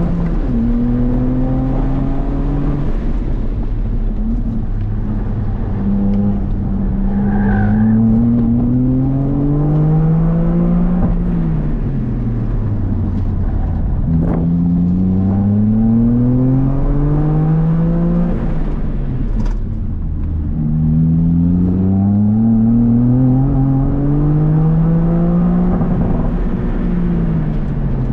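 Toyota GR Corolla's turbocharged 1.6-litre three-cylinder engine, heard from inside the cabin under hard driving. Its revs climb in three long pulls and drop away in between as the throttle is lifted.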